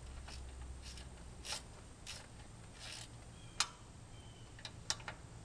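A scatter of light clicks, taps and scrapes, about a dozen irregular ones, over a steady low hum.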